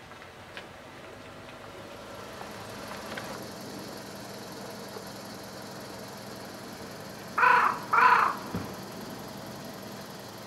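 A crow cawing twice in quick succession, about seven seconds in, over a faint steady outdoor background.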